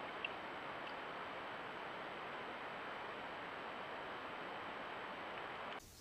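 Steady outdoor hiss, like wind or forest background noise on the microphone, with a faint click or two. It cuts off abruptly near the end.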